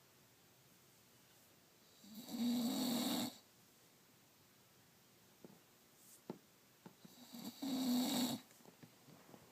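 Bulldog snoring in its sleep: two loud snores, each about a second long and about five and a half seconds apart, with quiet between.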